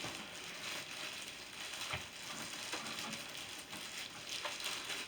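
Plastic packaging rustling and crinkling, with a few light knocks, as a new scale is unwrapped and lifted out of its box.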